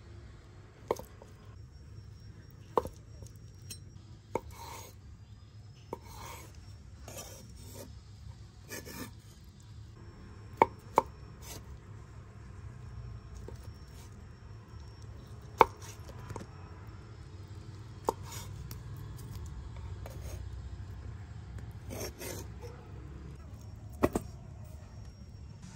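Knife chopping on a wooden cutting board in irregular, widely spaced strokes, a handful of them sharp and much louder than the rest.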